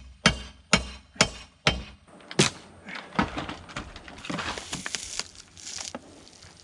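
Hammer striking deck lumber, about two blows a second for the first two seconds, then a sharp crack and a few seconds of wood crackling and splintering as the old boards break apart.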